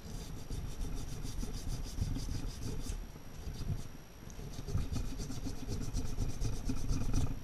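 A sharp hand tool scraping the aluminium mating surface of an Aprilia SXV engine crankcase half, cleaning off old sealant in quick, repeated strokes, with a short lull about three to four seconds in.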